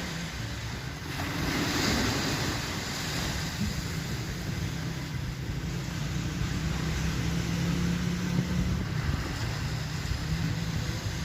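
Beach ambience: surf and wind buffeting the microphone, with a low steady hum that comes and goes.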